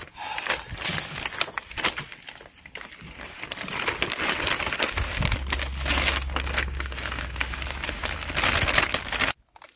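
Plastic bag of seed-starting potting mix crinkling and rustling as it is handled and tipped, with the soil pouring out of it. The crackling stops abruptly near the end.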